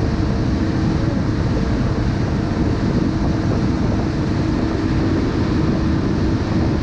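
Motorboat running at speed: a steady engine drone over the rush of spray thrown off the hull, with wind noise on the microphone.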